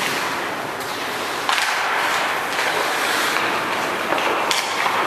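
Ice rink game play: skate blades scraping and carving the ice in a steady hiss, with a few sharp clacks of hockey sticks on the puck, the clearest about a second and a half in and again near the end.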